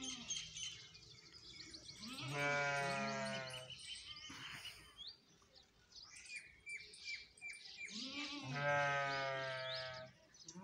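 Water buffalo calling twice, each a long, bleating moo of about a second and a half, with small birds chirping throughout.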